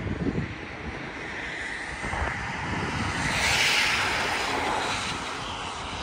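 A vehicle passing on the road, its noise swelling to a peak about three and a half seconds in and then fading.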